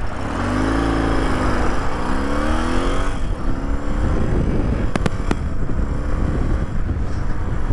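BMW R100GS's air-cooled flat-twin engine pulling away from a standstill and accelerating through the gears, its note rising, dropping at a gear change and rising again, then running steadily at cruising speed with wind rush. Two sharp clicks about five seconds in.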